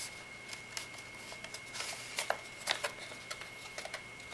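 Soft scattered clicks and rustles of hands working a tube of Noctua NT-H1 thermal paste out of a foam insert in a cardboard accessory box, over a faint steady high whine.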